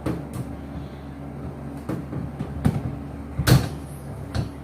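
A series of sharp knocks and clicks as refrigerator parts and panels are handled and fitted back in place, the loudest about three and a half seconds in.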